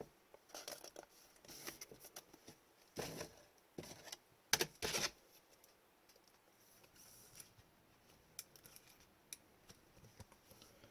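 Hockey trading cards being handled and slid through by hand, with scattered soft rustles, scrapes and taps of card stock; the loudest bursts come about three seconds and about five seconds in.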